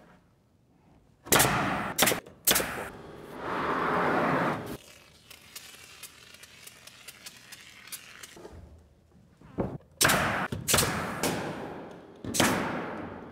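Pneumatic coil nailer firing nails through OSB subfloor sheathing into wooden I-joists, in sharp single shots: three about a second in and a quick run of them near the end. Between the bursts there is a short scraping rush, then a faint clicking from a caulking gun as subfloor adhesive is run along the joists.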